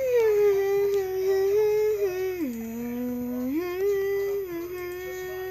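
A girl humming a tune in long held notes, sliding down to a lower note for about a second midway and then back up.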